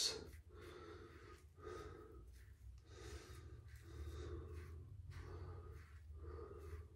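Soft, short strokes of a safety razor scraping through lathered stubble, about one a second, with the shaver's breathing, over a faint steady low hum.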